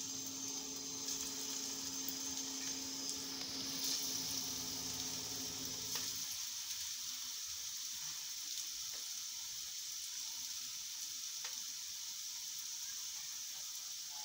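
Ghee sizzling in a frying pan as coconut-semolina vadas shallow-fry, more patties being set into the hot fat in the first few seconds. A low hum underneath stops about six seconds in.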